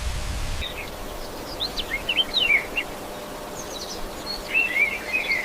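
Small birds chirping in quick, short calls over a steady outdoor background; a louder steady hiss cuts off abruptly about half a second in.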